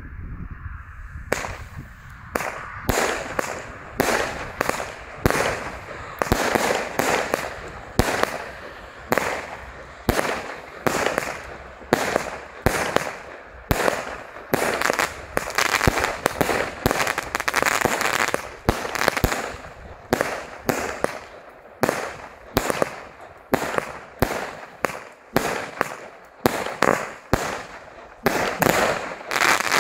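Superior Fireworks 'Eksplosion' consumer cake, 36 shots from 20 mm tubes, firing shot after shot: sharp bangs about one or two a second, each trailing off quickly. It starts about a second in and keeps going without a pause.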